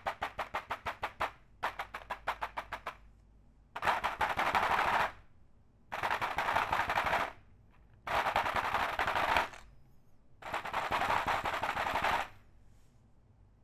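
Mechanical keyboard being typed on: one key tapped over and over, about five clacks a second, in two short runs, then four bursts of fast two-handed typing, each a second or two long with short pauses between.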